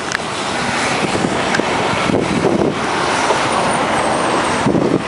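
Steady rush of road traffic, vehicles passing close by, swelling over the first second, with some wind on the microphone.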